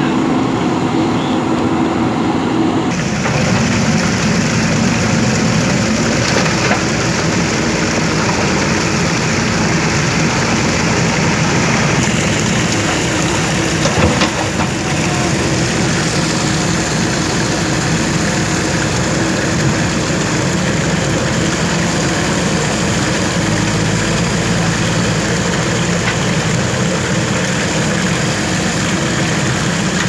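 A JCB backhoe loader's diesel engine runs steadily while the backhoe digs a drain, with a single sharp knock about halfway through.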